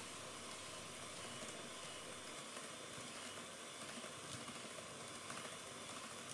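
Electric hand mixer running steadily, its beaters whipping powdered cream mix and milk in a stainless steel bowl, with a few faint ticks.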